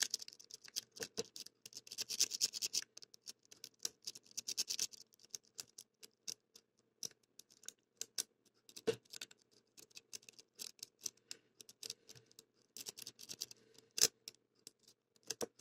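Lock pick scraping and clicking against the pin stack inside a CITY ISEO padlock under light tension: many small, irregular metallic ticks and scratches, thicker in runs about two seconds in and again near the end, with a few sharper clicks.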